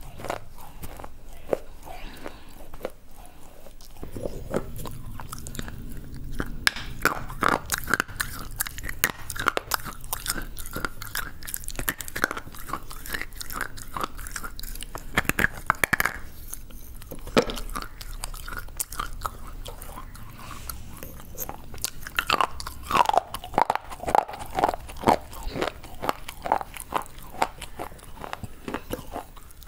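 Close-miked biting and chewing of slate bars: many sharp, crisp crunches and snaps as pieces of the slate are bitten off and ground between the teeth.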